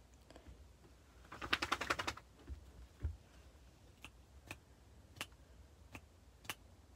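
A quick rattling run of about ten sharp clicks, then single sharp clicks about every half second to second.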